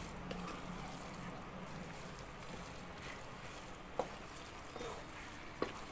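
Wooden spatula stirring thick, sticky biko rice in a nonstick pan over a steady low hiss, with two sharp knocks of the spatula against the pan, about four and five and a half seconds in.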